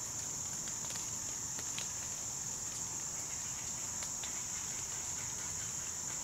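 Steady chorus of insects: one continuous high-pitched trill with no breaks, and a few faint clicks.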